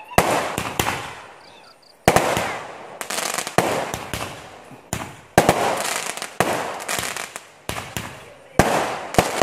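Aerial fireworks going off in quick succession: about ten sharp bangs, irregularly spaced half a second to a second and a half apart, each trailing off in a fading hiss.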